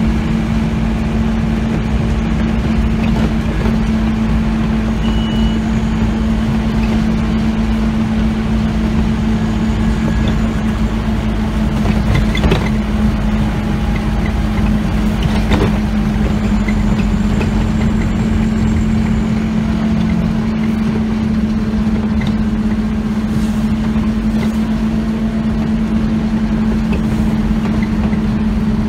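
Scania OmniCity diesel bus heard from inside the passenger saloon while under way: a steady engine drone with a deep low rumble, and two short knocks near the middle.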